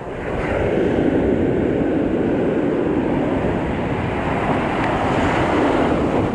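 Ocean surf washing against the shore with wind rumbling on the microphone, swelling about half a second in and then holding as a steady loud rush.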